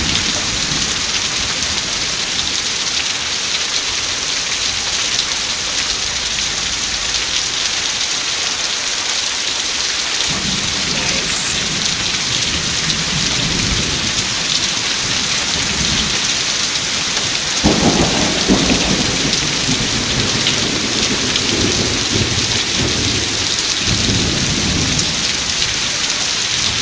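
Heavy rain falling steadily in a thunderstorm. Thunder rumbles from about ten seconds in, then a louder peal breaks a little past halfway and rolls on for several seconds.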